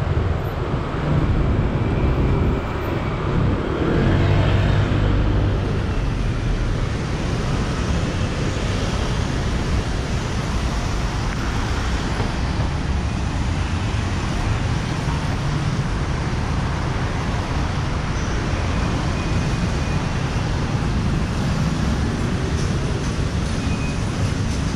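Busy city road traffic: a steady rumble of cars and buses going by, a little louder for the first few seconds as heavier vehicles pass.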